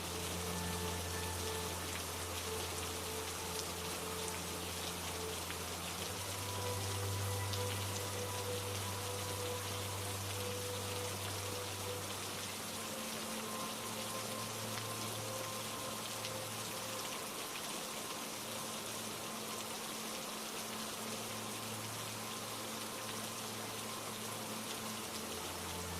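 Steady rain, an even hiss of falling drops, under a soft held drone of low sustained notes that shift to new pitches a few times.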